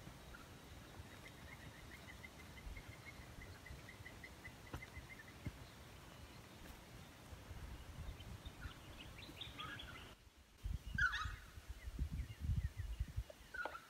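Wild birds calling: a rapid trill of evenly repeated notes for a few seconds, then scattered sharper calls, the loudest about eleven seconds in. Low rumbling comes in over the last few seconds.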